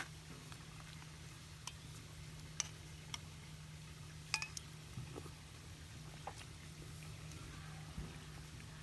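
Scattered small clicks and knocks, about eight of them at irregular intervals, over a steady low hum.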